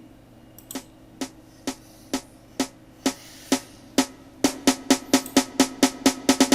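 Programmed snare drum roll build-up played back in FL Studio, with reverb on the snare and its wet level automated. Single hits come about two a second, then about four a second from about four and a half seconds in, growing louder as the roll speeds up.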